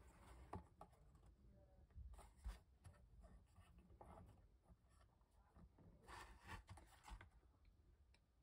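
Faint handling sounds: hands rubbing and tapping the plastic and metal parts of a small belt-drive assembly, with light rustles and small clicks, the busiest about two seconds in and again near six to seven seconds.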